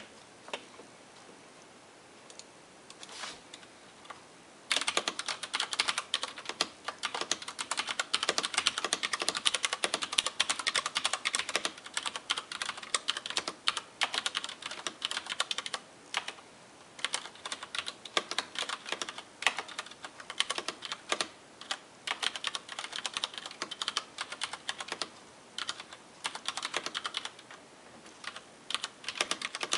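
Rosewill RK-9000 mechanical keyboard with Cherry MX Brown switches being typed on: a few scattered keystrokes, then from about five seconds in, fast continuous typing, a dense run of key clicks with brief pauses.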